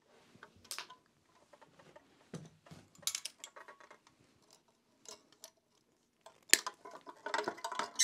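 Pliers clicking and clattering against an old battery charger's metal case and parts as it is taken apart. Scattered small clicks and knocks, a sharp snap a little past halfway, and a busier run of rattling near the end.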